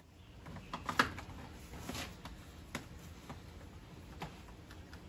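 Scattered light clicks and taps as a cordless drill with a 10 mm socket is handled and fitted against the transmission pan bolts, over a faint low steady background noise.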